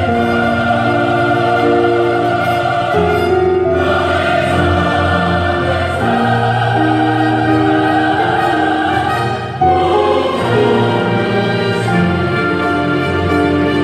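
Church choir singing with instrumental accompaniment, in long held chords that shift every second or so.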